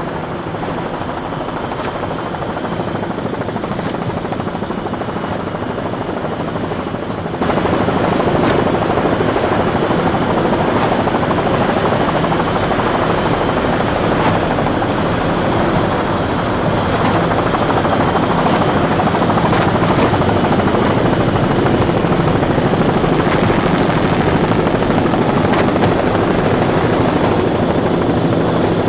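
Steady helicopter engine and rotor noise, heard from on board the camera helicopter over the race. It gets louder suddenly about seven seconds in and then holds steady.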